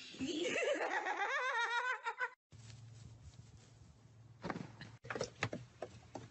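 A high, warbling vocal sound, rising in pitch and wavering rapidly, for about two seconds. It breaks off sharply, and then a low steady hum runs under a few sharp taps and knocks.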